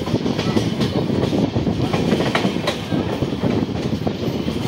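Express train coach wheels running over the track at speed: a steady rumble with sharp clacks at irregular intervals as the wheels cross rail joints.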